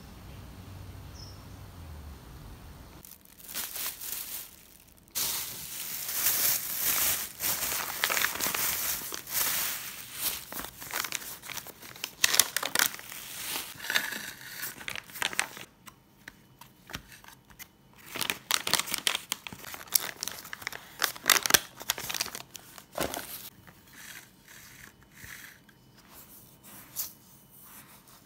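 Paper food wrapping crinkling and tearing as it is opened, in dense bursts for about twenty seconds, thinning to lighter rustles near the end. A low hum comes before it for the first few seconds.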